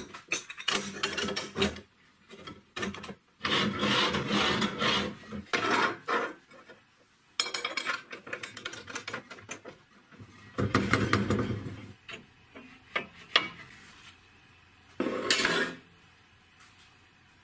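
Steel parts of a homemade saw frame scraping and rubbing against each other in a series of separate bursts, each a second or two long, with a few sharp clicks between them.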